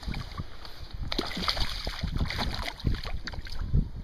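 Gusty wind rumbling on the microphone over water lapping and splashing, with a few small sharp knocks or splashes.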